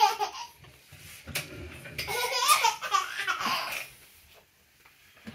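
Young children laughing in two bouts: a short burst at the start, then a longer run of giggling about two seconds in.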